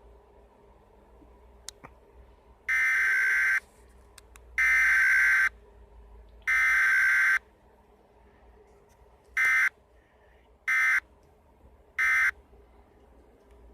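Emergency Alert System–style digital data bursts: three harsh buzzy bursts of about a second each, evenly spaced, then three short bursts, in the pattern of an EAS SAME header followed by the end-of-message code.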